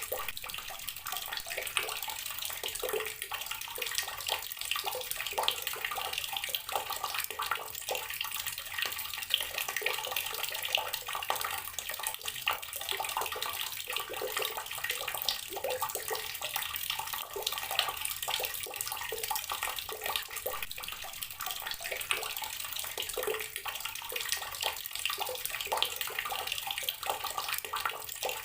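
Water from a tap pouring steadily into a container of water, a constant splashing with many small splashes and bubbles.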